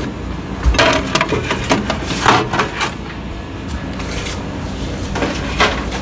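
A quilted fabric microwave potato bag being handled and set down in a microwave: a few soft rustles and light knocks scattered through, over a steady low hum.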